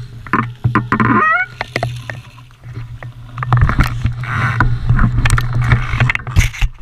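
Mountain bike clattering and rattling over rough trail, with a steady rumble of wind on the microphone and a brief rising squeak about a second in. The clatter grows denser from about halfway through.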